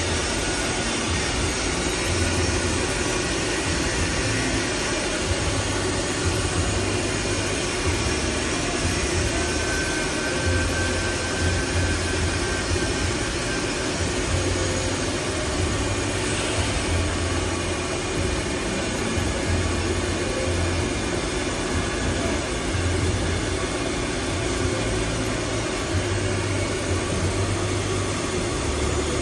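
Toilet paper converting machinery running steadily, a continuous mechanical whirr with a low hum that cuts in and out every second or two.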